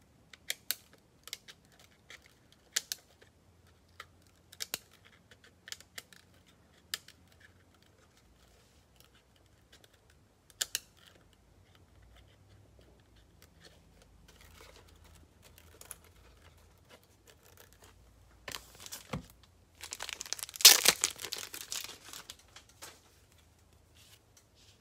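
Scattered sharp clicks and taps, then a few seconds of packaging crinkling and tearing, loudest about three-quarters of the way in.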